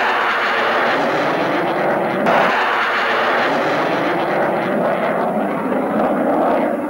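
Loud, steady jet engine noise of a MiG-21 fighter flying overhead.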